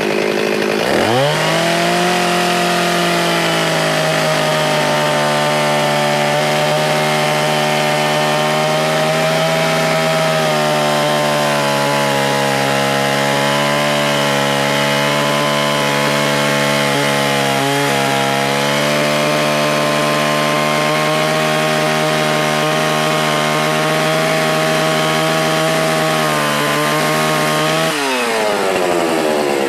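Stihl 044 two-stroke chainsaw throttled up about a second in and held at high speed while sawing through a log, its pitch wavering slightly under load. Near the end the throttle is released and the engine drops back to idle.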